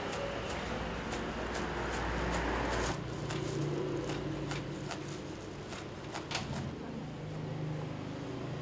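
Chef's knife slicing carrot, cucumber and red chilli on a plastic cutting board: a run of quick, uneven taps as the blade strikes the board, over a steady low hum.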